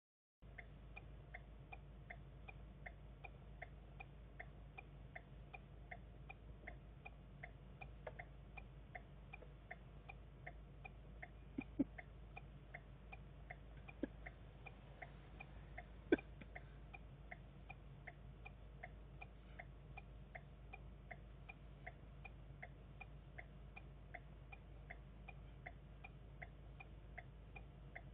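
Steady, evenly spaced ticking, about four ticks every three seconds, over a low steady hum. Three sharper, louder taps come near the middle.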